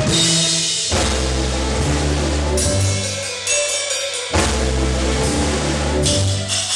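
A drum kit played live: cymbal crashes with the bass drum at the start, about a second in and again a little after four seconds, each followed by low notes that ring on for a few seconds.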